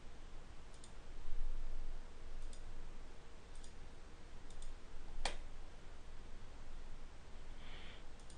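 Computer mouse clicks, about seven scattered single clicks over a few seconds, the sharpest one about five seconds in, over a faint steady hum from the recording setup.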